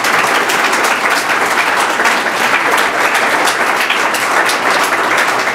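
Loud, steady applause from a lecture-hall audience clapping.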